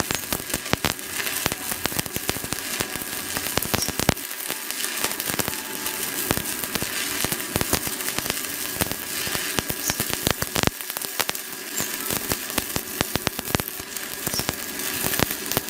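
Stick (arc) welding with a 4 mm electrode on a Japanese domestic-market stick welder: the arc crackles and sizzles steadily. It burns without the rod sticking or the arc cutting out, the sign of a machine with power to spare for a thick rod.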